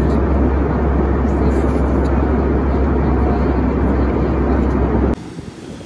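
Steady airliner cabin noise heard from a passenger seat: a loud, even low drone with rushing air. About five seconds in it cuts off suddenly to quieter wind on the microphone and surf.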